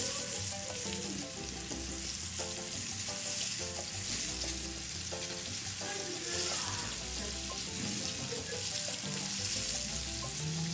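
Fish sizzling in a pan, a steady frying hiss, with background music underneath.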